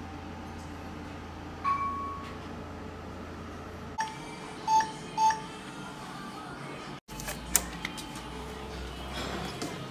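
Touchscreen meal-ticket vending machine beeping as its buttons are pressed. There is one longer beep about two seconds in, then three short beeps in quick succession, followed by a few sharp clicks.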